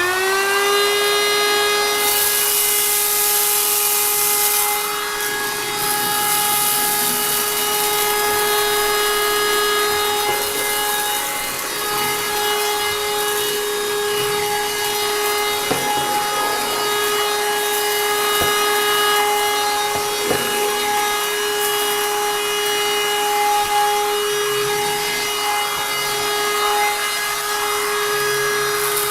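Handheld wet-and-dry car vacuum cleaner (model YD610) running at full speed with a steady high motor whine, picking up spilled rice. A hiss of air and debris rises and falls as the nozzle is worked, with a few sharp clicks of grains near the middle.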